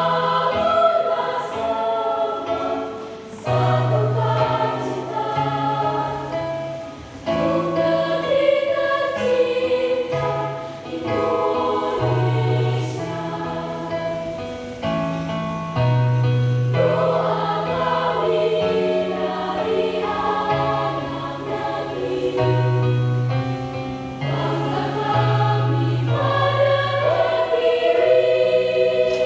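A school choir singing a song in several voice parts, with low held notes underneath that change every second or two.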